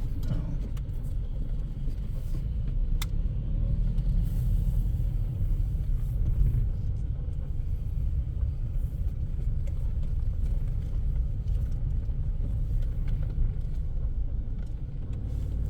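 Car running, a steady low rumble.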